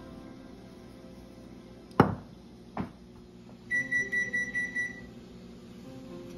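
Two sharp knocks, then a quick run of high electronic beeps lasting over a second, like a kitchen appliance or timer signalling, over soft background music.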